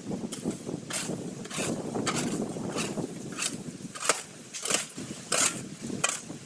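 Hoes scraping and swishing through a heap of dusty peanut kernels and shells, a quick rustling stroke about every two-thirds of a second, the strokes getting sharper near the end.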